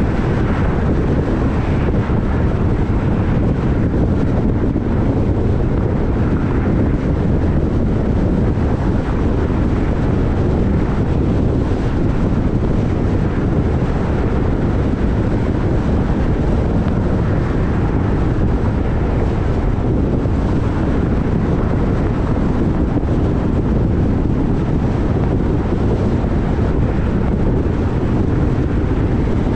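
Steady wind rushing over the microphone on top of the low, even rumble of a moving vehicle, with no distinct events.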